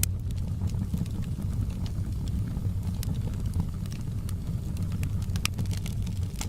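Wood fire burning in a fireplace: a steady low rumble with scattered crackles and pops. A sharper pop comes right at the start and another about five and a half seconds in.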